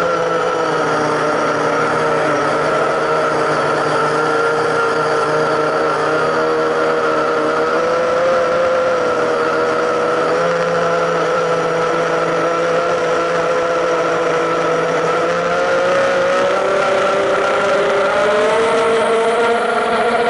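A drone's motors and propellers whining steadily, heard close up through its onboard camera. The pitch wavers slightly up and down as the drone manoeuvres and rises near the end.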